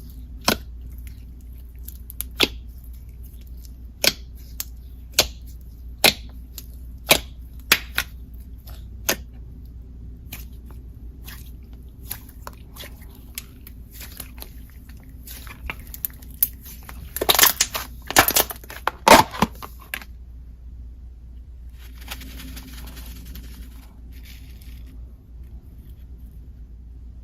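Slime with clay mixed in, worked by hand and giving sharp, separate clicking pops about once a second. A quick run of louder crackling pops comes about two-thirds of the way through, followed by a softer crackly rustle.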